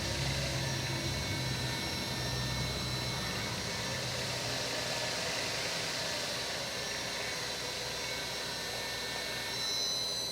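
Vertical spindle of a Fortworth CS-G450C milling machine running under its 5 hp AC-inverter-driven motor, a steady machine hum with a high electrical whine. The whine slides in pitch near the start and again near the end, as the spindle speed is changed from the pendant's potentiometer.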